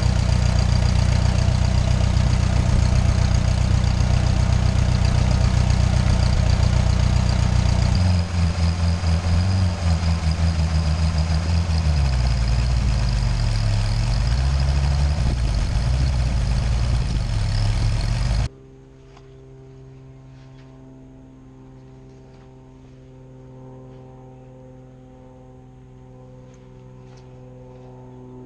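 A vehicle engine running loudly under way, its pitch dipping and rising in the middle as it changes speed. It cuts off abruptly about two-thirds of the way through, leaving only faint steady tones.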